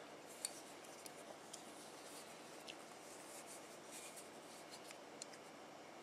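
Faint handling noise from a Toyota Previa sliding-door hinge being turned over in the hands: scattered light clicks and rubbing of its metal arm and roller parts, the sharpest click about half a second in.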